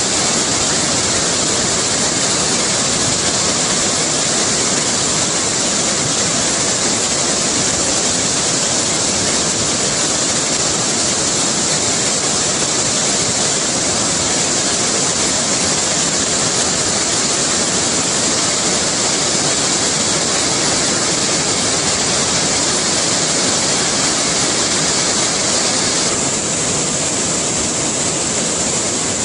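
River in flood rushing over rocks and rapids: a loud, steady wash of whitewater that shifts slightly in tone near the end.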